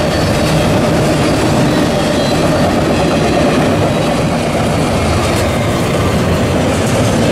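Freight train of double-stack container cars rolling across an overhead railway bridge: a steady, loud rumble of wheels on rail.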